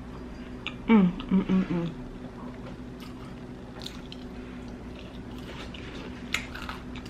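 Close-up chewing of Hot Cheeto-covered loaded fries: soft wet mouth sounds and scattered small clicks, with a brief hum of voice about a second in.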